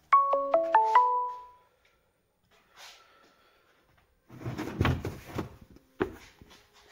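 A short run of musical notes in quick steps dies away in the first second and a half. After a quiet gap, hands handle the carpeted cargo area of the car, with a few seconds of rustling and a couple of knocks.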